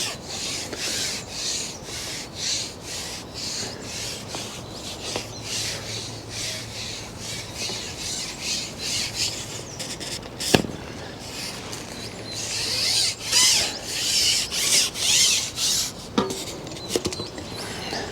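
Carbon fishing pole being shipped back, sliding in repeated rasping strokes, one to two a second. A sharp knock comes about ten and a half seconds in, and a few more knocks near the end.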